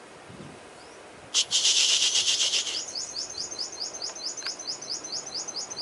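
Sunbird singing: a sudden loud burst of dense, high chirping about a second and a half in, followed by a fast series of short, rising high notes, about six a second.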